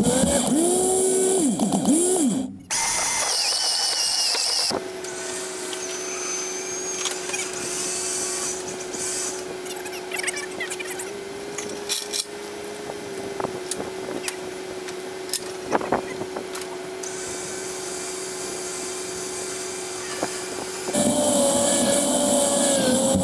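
Harbor Freight electric winch running, a steady whine as it reels in steel cable to drag an ash log up onto a trailer, with scattered clicks and knocks. At the start and end the pitch wavers as the load changes.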